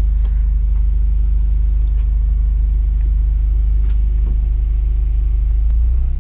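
A Honda Fit pulling away, heard from inside the cabin: a steady, low engine and road rumble. It eases off slightly near the end.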